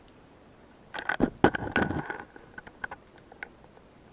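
Underwater clicks and knocks: a quick cluster of sharp clicks about a second in, then scattered faint ticks.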